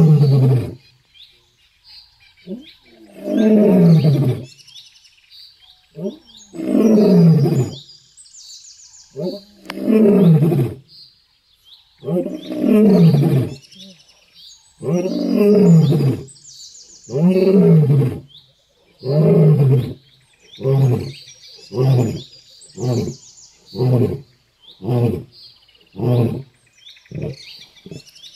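Male lion roaring in a full bout: long, deep calls that fall in pitch, about one every three seconds, giving way in the last third to shorter grunts coming roughly once a second. Birds chirp faintly in the background.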